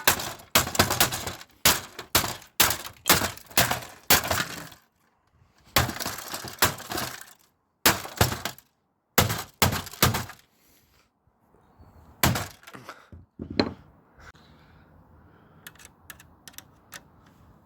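A big hammer striking and breaking the plastic casing of a Samsung Xpress M2022 laser printer, with cracking and breaking. A fast run of blows comes in the first five seconds, then fewer, spaced-out blows, then faint clattering of loose pieces near the end.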